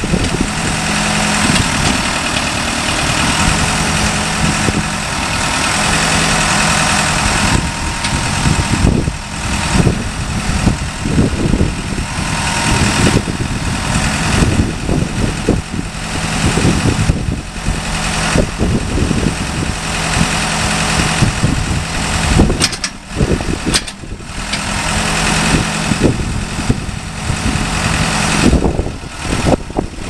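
Case 580 Super M backhoe's 3.9-litre four-cylinder turbo diesel engine running, its level rising and falling, with two brief dips about two-thirds of the way through.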